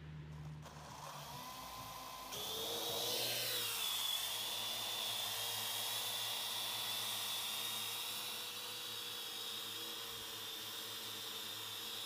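Parrot AR.Drone quadcopter's four electric motors and propellers spinning up and lifting off: a faint hum starts about a second in, jumps to a high whine about two seconds in, wavers in pitch briefly, then holds steady as the drone hovers.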